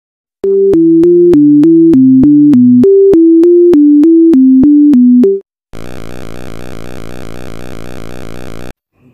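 An electronic synthesizer melody of quick, evenly paced notes, about three a second, each starting with a click, lasting about five seconds. After a short gap comes a quieter, steady buzzing synth drone for about three seconds.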